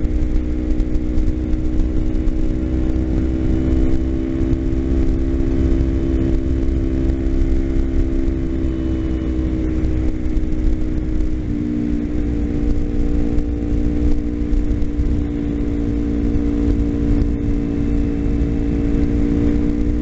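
Kawasaki Ninja 250's parallel-twin engine running steadily while riding along at speed, heard from the rider's seat with a low rumble of wind and road underneath. The engine note holds an even pitch, which shifts once about eleven seconds in.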